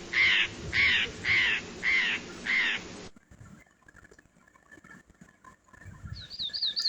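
Parrot squawking, five loud calls about half a second apart that stop about three seconds in. Near the end a small bird starts a quick run of high chirps.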